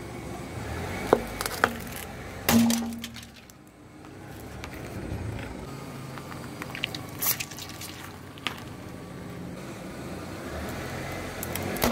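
Car tyre rolling slowly over plastic objects and crushing them: a string of sharp cracks and snaps of breaking plastic. The loudest comes about two and a half seconds in, and more cracks come near the end as a hard plastic box gives way.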